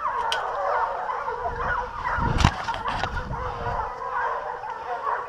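A pack of hunting hounds baying in chorus on the trail of a wild boar, many voices overlapping. A single sharp knock comes about halfway through, over a brief low rumble.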